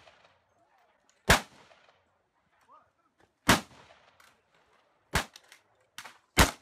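Four single rifle shots, each followed by a short echo, spaced about two seconds apart and coming a little quicker toward the end.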